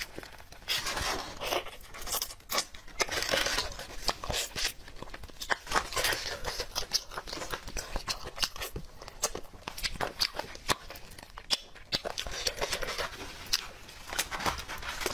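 Gloved hands tearing apart a kiln-roasted whole chicken: skin and meat ripping, many small sharp clicks, with the foil and plastic gloves crinkling and chewing now and then.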